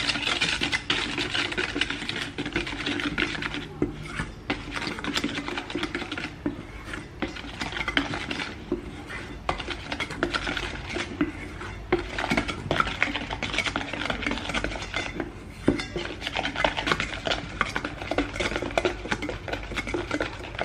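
Wire whisk beating and scraping against a stainless steel bowl, mixing cocoa powder and flour into a wet egg yolk batter: a rapid, continuous clatter with a few brief pauses.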